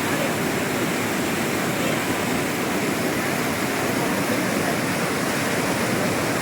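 A fast, turbulent river rushing steadily.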